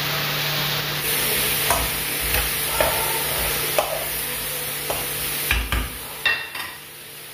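A wooden spatula stirs and scrapes chickpeas and diced potatoes in a black frying pan over a gas flame while the food sizzles. Several scrapes and knocks of the spatula against the pan are heard, and the sound gets quieter near the end as the stirring stops.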